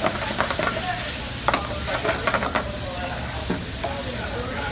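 Metal tongs stirring sliced mushrooms through a reducing demi-glace sauce in a stainless steel sauté pan, scraping and clicking against the pan several times over the sauce's steady sizzle.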